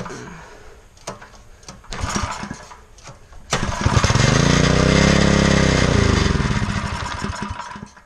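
Small single-cylinder mini bike engine: a few knocks and rattles, then it fires about three and a half seconds in, revs up and winds back down, and dies near the end.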